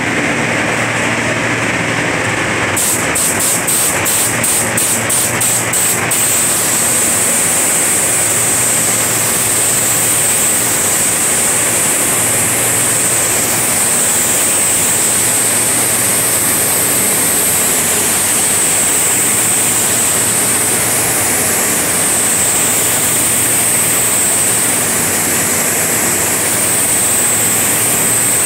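Gravity-feed paint spray gun hissing steadily as compressed air atomizes paint onto a car's bodywork, over a low steady hum. A few seconds in the hiss briefly pulses rapidly.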